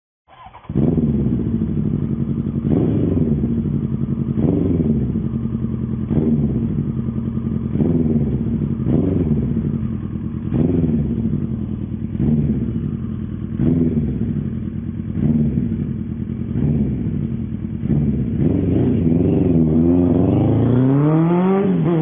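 Suzuki 1100 motorcycle engine starting about half a second in, then idling with short throttle blips every second and a half or so. Near the end it rises steadily in pitch as the bike pulls away and accelerates.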